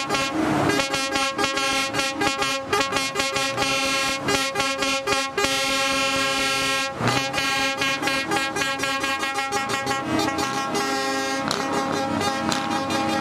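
Truck air horns sounding a sustained chord of several notes, some notes changing as it goes on.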